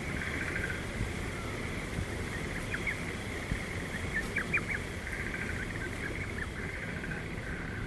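Small birds chirping and twittering in quick high notes, several sharp chirps bunched together about halfway, over a steady low rumble.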